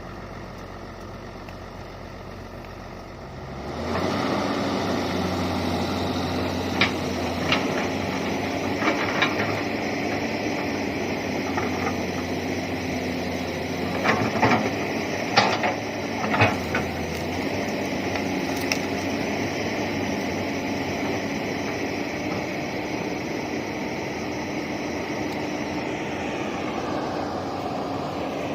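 Komatsu PC200 excavator's diesel engine idling, then rising to working revs about four seconds in and running steadily, with a few sharp knocks and cracks between about seven and seventeen seconds in.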